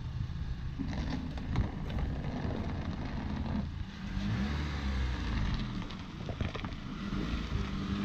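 Honda Accord coupe reversing out of a driveway into the street, its engine note rising and falling as it is driven.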